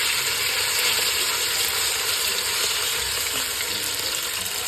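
Chicken thigh strips frying in hot oil in a pot, a loud steady sizzle.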